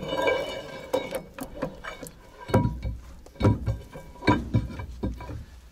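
Irregular metal clanks and knocks with a ringing tone, the heaviest from about two and a half seconds in: tools and metal parts at a truck's axle hub as a half-shaft is worked loose.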